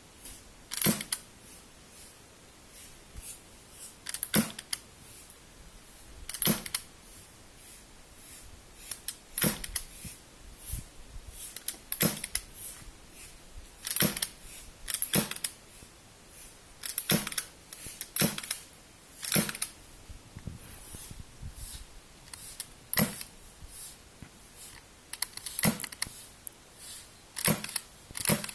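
Gas airsoft SOCOM Mk23 pistol with a silencer fitted, fired one shot at a time: a sharp pop every one to three seconds, sometimes two in quick succession.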